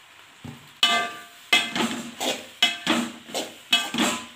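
Metal slotted spoon knocking against the side of a large aluminium pan while stirring pasta: about eight clanks, roughly two a second, starting about a second in, each one ringing briefly.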